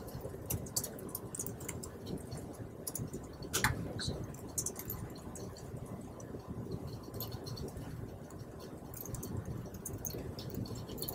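Faint, irregular clicks of a laptop keyboard being typed on over low room noise, with one sharper click about three and a half seconds in.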